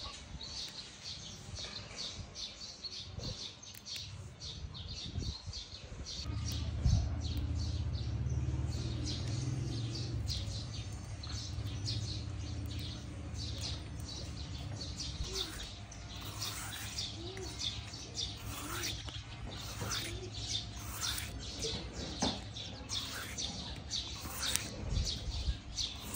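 Birds chirping, with a run of falling call notes about once a second in the second half, over crisp ticking and rustling as leafy vegetable stems are picked and stripped by hand. A low rumble rises for several seconds near the middle.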